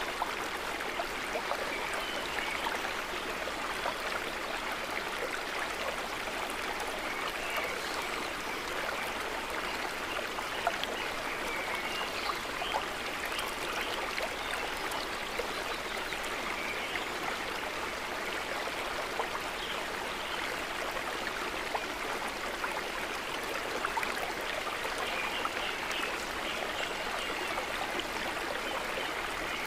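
Steady trickling, babbling water, with small droplet-like ticks scattered through it.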